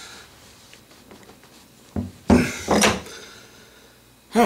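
Brass ball valves and threaded pipe fittings knocking and clattering as they are handled on a PVC pipe end cap: a knock about two seconds in, then two louder clatters close together.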